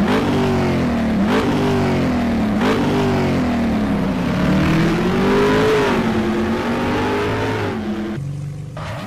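Car engine revving: its pitch jumps up sharply twice about a second and a half apart and sags back each time, then climbs slowly and falls away again.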